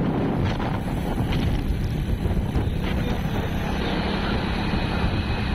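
Steady wind rushing over the microphone, with the low rumble of a vehicle moving along a paved road.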